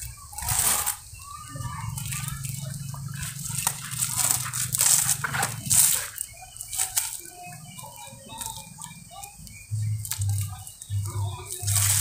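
Plastic rope and bamboo poles rustling in short bursts as the rope is tied on, with birds chirping throughout.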